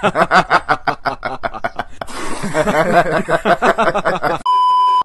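Rapid laughter in quick repeated pulses, several a second, for about four seconds, then a steady beep tone for about half a second that cuts off suddenly.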